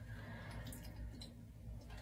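A soft breath, then a few light clicks and taps from something being handled.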